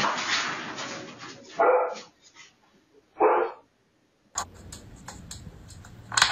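A dog barks twice, about a second and a half apart, after a noisy scuffle that fades over the first second.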